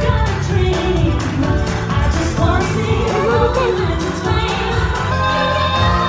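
Upbeat pop show music with singing over a steady beat, played through the stage loudspeakers for a live character dance show.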